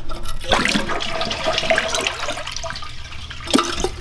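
Toilet flushing, water rushing through the newly reset toilet as a test for leaks at its base. A short knock about three and a half seconds in.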